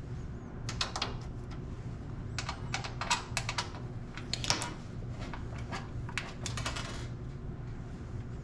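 Screws being loosened from a steel computer tower's rear panel with a Phillips screwdriver and handled: irregular light metallic clicks and ticks, over a steady low hum.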